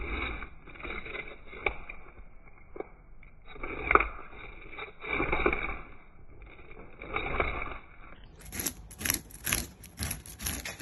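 Scales being scraped off an Australian salmon: a series of rasping strokes along the fish's side, spaced out at first and quicker, about two a second, near the end.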